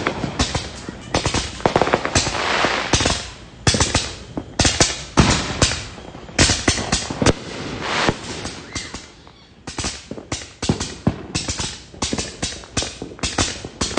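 Neighbourhood fireworks and firecrackers going off in dense, irregular sharp bangs and pops, several in quick runs, with a brief lull a little past the middle.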